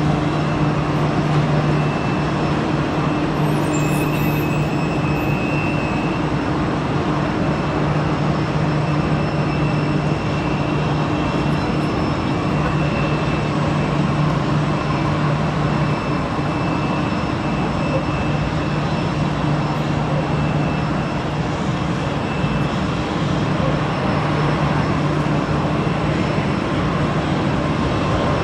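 Jet noise from a Boeing 777-300ER's GE90 engines on approach and go-around: a steady rumble over a constant low hum that stays at about the same loudness throughout.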